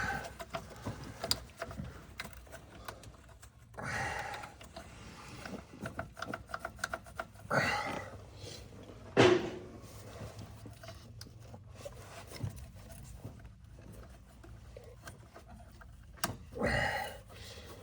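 Hand tools and engine parts being handled under a truck's hood: scattered clicks and knocks, with one sharp knock about nine seconds in.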